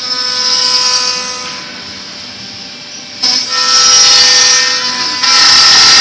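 CNC router's horizontal side spindle cutting into the edge of a board to make side holes: a high spindle whine with cutting hiss. It eases off for about a second and a half midway, then comes back and grows louder.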